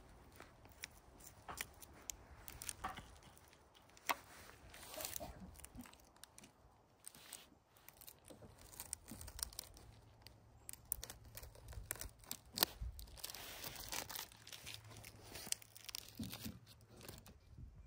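Plastic wrapping crinkling and tearing as it is peeled off a sausage, in irregular crackles and clicks.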